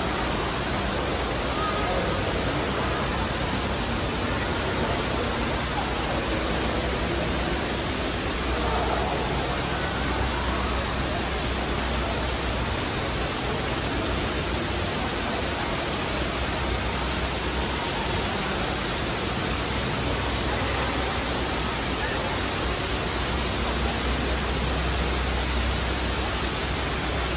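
Steady, even rushing noise with faint, indistinct crowd chatter underneath.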